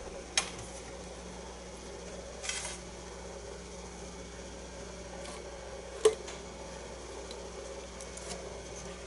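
Hands unwinding wrapping thread from a wooden dowel: a few faint, light clicks and a brief rustle, the sharpest click about six seconds in, over a steady low hum.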